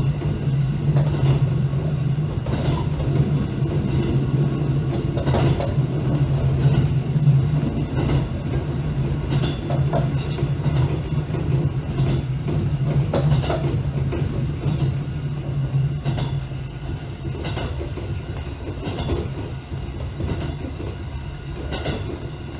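Train running along the track, with a steady low hum from the running gear and irregular clacks over the rail joints. It grows quieter in the second half as the train slows for a station stop.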